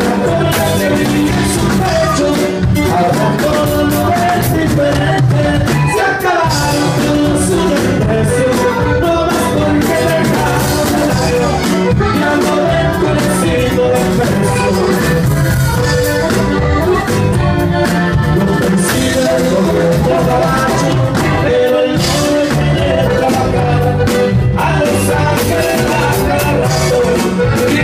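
Live band playing Latin dance music loudly, with electric bass in the band.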